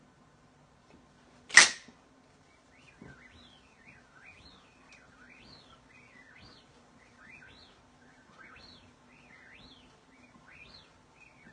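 Toy lightsaber switched on with one loud sharp burst, then humming low and steady while swung, each swing giving a short rising-and-falling whoosh, about two a second.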